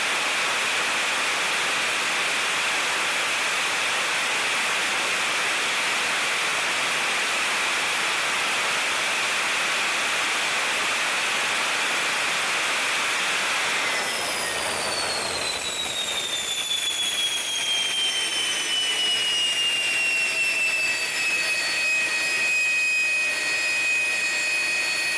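Jet engine running with a steady rushing noise and a high whine. About halfway through the rush drops back, and a high turbine whine slides down in pitch over several seconds, then holds steady.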